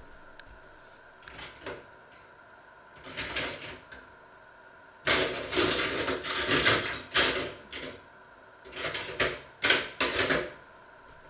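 Kitchen utensils and dishes clattering as they are handled, in several bursts. The longest comes about halfway through and lasts nearly three seconds.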